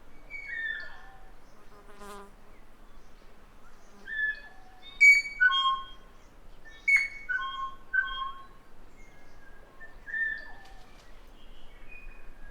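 New Zealand kākā calling: a scattering of short, clear whistled notes, several sliding down in pitch, with a brief harsh rasp about two seconds in.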